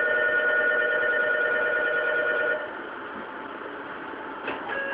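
Electronic station departure bell ringing steadily for about two and a half seconds, then cutting off, over the steady hum of a train standing at the platform. A sharp knock follows near the end.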